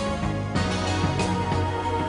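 Background music: sustained notes over a steady low bass, changing chord about half a second in.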